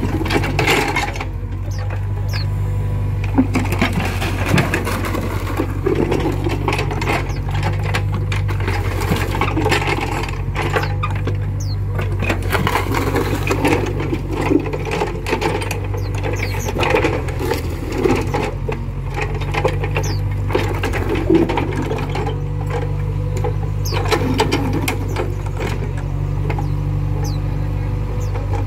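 Volvo EC55B mini excavator's diesel engine running steadily while its bucket digs and drops wet mud, with frequent clanks and knocks from the bucket and arm linkage.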